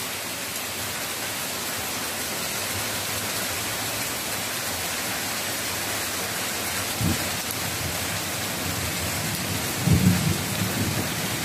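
Heavy typhoon rain pouring steadily, with thunder rumbling low twice: briefly about seven seconds in and louder near the end.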